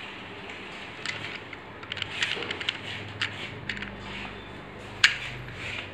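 Remote-controlled Lego Technic model lorry driving and steering under its Power Functions motors: scattered small plastic clicks and ticks, with a faint low motor hum in the second half and one sharper click near the end.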